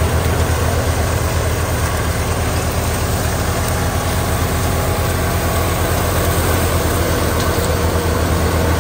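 Tractor-driven wheat thresher running steadily while wheat bundles are fed into it: a loud, even low drone of the tractor engine and the spinning threshing drum.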